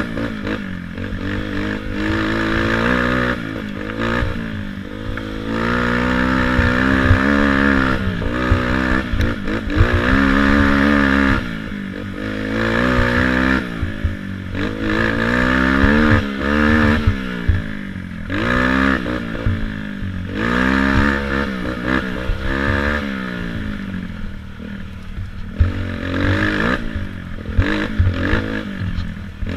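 Youth racing quad's engine revving up and falling back over and over as the rider works the throttle through a rough woods trail, with clatter and knocks from the machine over the rough ground.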